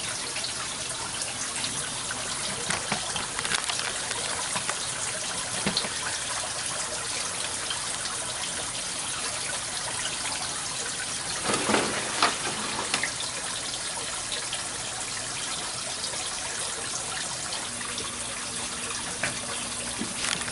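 Water running steadily from an aquaponics system's PVC inlet pipe and splashing into the grow bed. A brief louder knock of handling comes about halfway through.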